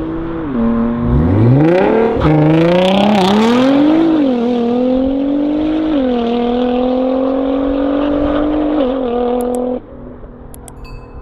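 Tuned Nissan GT-R R35 SpecV's twin-turbo V6 pulling hard through the gears. The engine pitch drops about half a second in, then climbs, with further drops at gear changes around four and six seconds in. Near the end the engine note falls away abruptly to a much quieter level, with a few sharp clicks.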